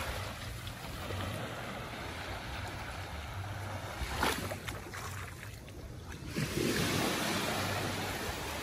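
Wind buffeting the microphone over the steady wash of sea water along the shore, gusting stronger from about six seconds in. A short sharp noise stands out about four seconds in.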